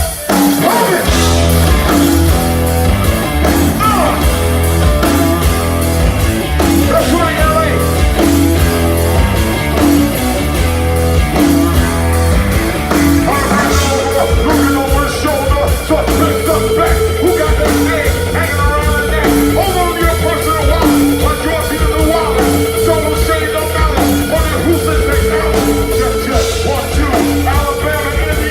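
Rap-rock band playing live and loud, with a heavy bass line, a steady beat and vocals. A sustained high note comes in about halfway through.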